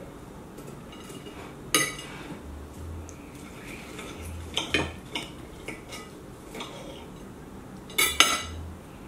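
Knife and fork clinking and scraping on a ceramic plate while cutting a breaded chicken cutlet. There are a few sharp clinks, about two seconds in, near the middle, and the loudest pair near the end.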